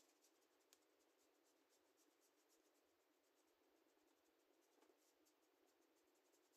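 Near silence, with the faint scratch of a brush stroking acrylic paint across a canvas.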